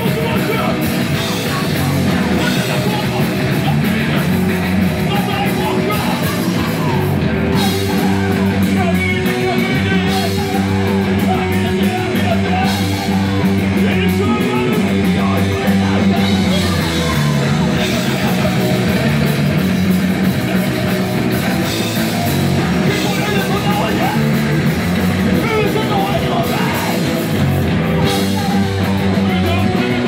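Live punk rock band playing loud: distorted electric guitar, bass guitar and a drum kit, with the vocalist singing and yelling into the microphone.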